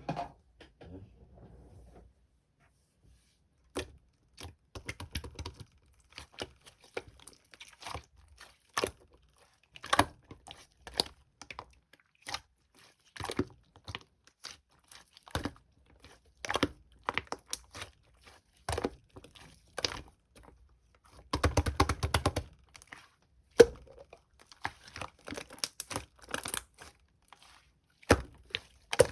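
Slime being squished, stretched and folded by hand, giving irregular sticky pops and crackling clicks, with a dense run of crackles about three-quarters of the way through.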